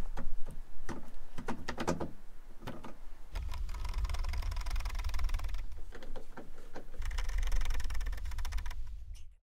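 Screwdriver with a long chrome extension driving T25 Torx screws into the tailgate's inner plastic trim: a few knocks as the tool is placed, then two spells of steady rapid ticking, one about two seconds long from about three seconds in and another near the end, cutting off suddenly.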